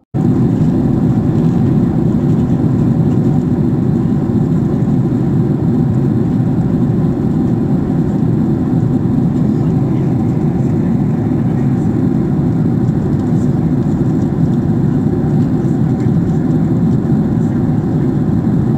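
Steady drone of an airliner cabin in flight: engine and airflow noise heard from inside the cabin at a window seat.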